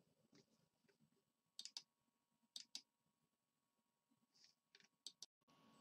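Faint computer mouse clicks over near silence, several in quick pairs.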